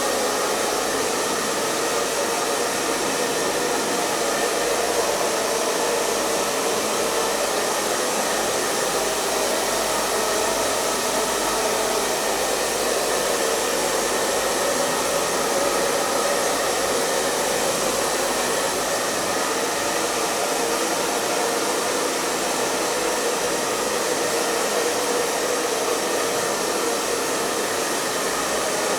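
Hair dryer running steadily: a constant blowing noise with a faint motor hum, unchanging throughout.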